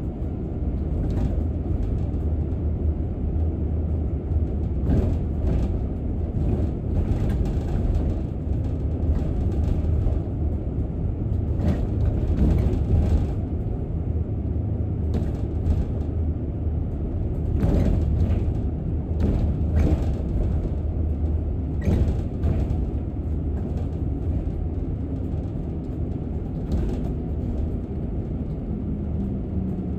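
Bus on the move, heard from inside: a steady low rumble of drivetrain and road, with frequent short rattles and creaks from the bodywork.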